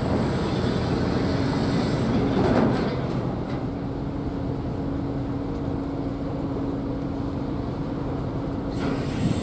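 Steady low mechanical hum and rumble with a held droning tone, swelling briefly louder about two and a half seconds in.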